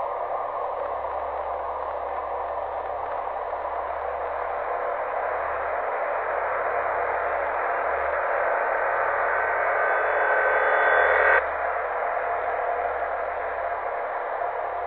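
An eerie, static-like droning hiss with a low hum beneath it. It swells over several seconds, breaks off suddenly about eleven seconds in, and drops back to a softer drone.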